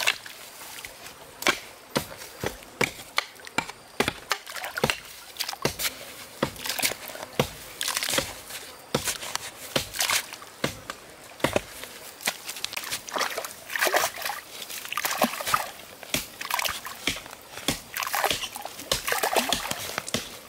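A hoe striking into wet mud and soil, sharp irregular chops about two a second, with water sloshing and splashing around the digging in between, heavier in the second half.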